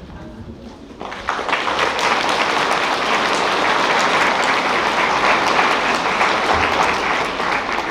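Audience applauding, a dense spread of many hands clapping that starts about a second in and tails off near the end.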